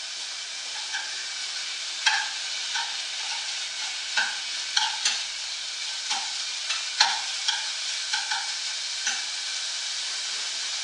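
Small lardons (allumettes) sizzling in a saucepan as they start to cook, a steady hiss, with a utensil stirring them and clacking against the pan a dozen or so times from about two seconds in.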